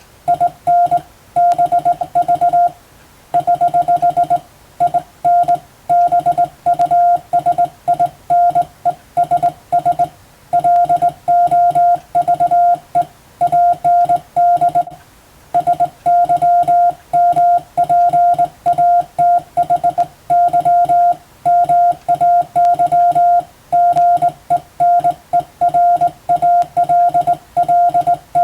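Morse code (CW) sent as a single steady beeping tone keyed in dots and dashes at a brisk pace, with slightly longer pauses between words.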